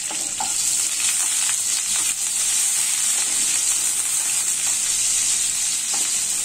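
Sliced onions with chopped garlic and green chilli sizzling steadily in hot oil in a non-stick kadai, with light stirring strokes of a wooden spatula.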